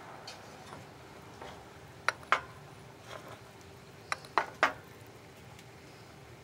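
Five sharp clinks of hard objects: a quick pair about two seconds in, then three more about two seconds later, each with a brief ring, over a faint steady hiss.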